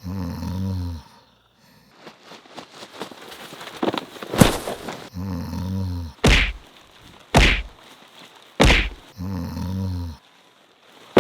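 Four sharp, heavy thuds, with a low, drawn-out groaning sound three times in between.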